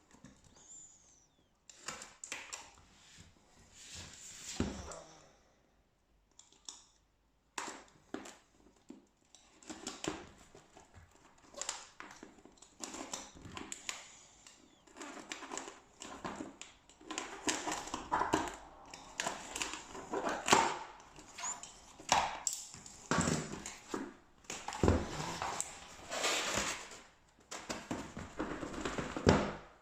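Lens box and packaging being handled and opened: irregular rustling, scraping and sharp clicks, busier in the second half.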